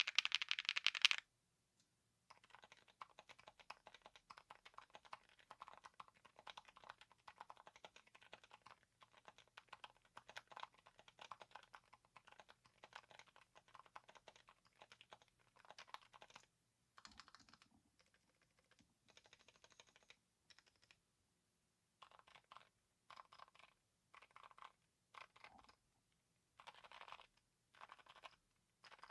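Typing on a mechanical keyboard fitted with silent linear switches: soft, muted keystrokes in quick runs, with short pauses later on. Right at the start comes a brief, much louder burst of key clacks.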